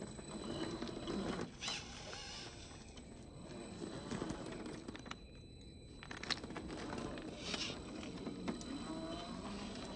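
A 1/10-scale RC rock crawler (RC4WD Trail Finder 2) working up bare rock: its small brushed 550 electric motor and geared drivetrain run in uneven bursts while the tires scrape and knock against the stone.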